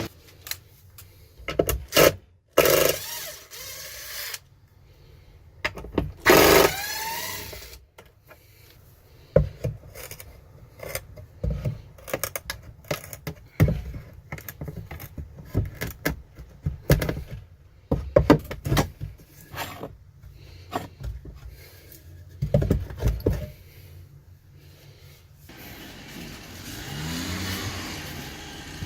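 Metal clamps clanking and scraping as they are taken down off a clamp rack, in a long irregular string of sharp knocks. A rushing sound swells and fades near the end.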